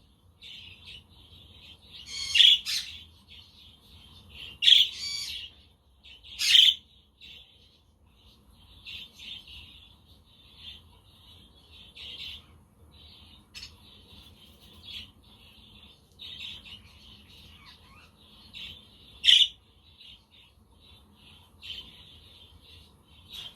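Budgerigars chattering and warbling almost without a break, with several much louder, harsh squawks rising above the flock four times, three of them in the first seven seconds and one near the end.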